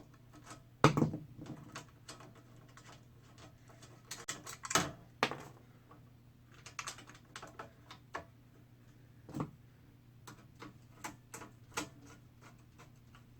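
Irregular clicks and light knocks of hand work with screws and a small module being fastened to the underside of a seat frame, the loudest knocks about a second in and near five seconds, over a faint low steady hum.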